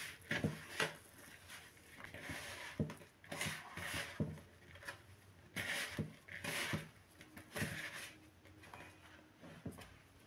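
A hand squeezing and rubbing flour into a crumbly dough in a plastic mixing bowl: irregular dry rustling swishes, about one or two a second, with soft knocks of hand and knuckles against the bowl.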